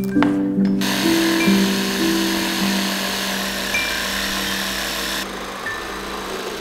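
Cordless jigsaw cutting through a wooden board. It starts about a second in and cuts off sharply a little after five seconds, with quieter noise after that. Background music plays throughout.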